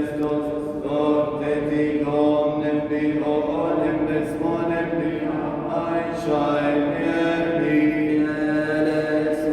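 Coptic congregation chanting the Holy Week (Pascha) praise together in unison, on long, held, slowly changing sung notes.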